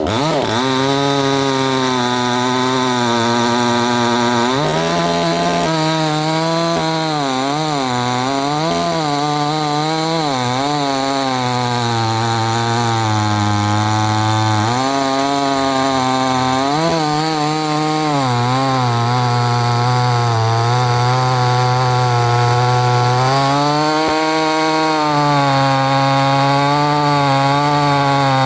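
A 68 cc two-stroke chainsaw running under load as it cuts wood. The engine pitch dips and recovers over and over as the chain bogs in the cut and picks back up.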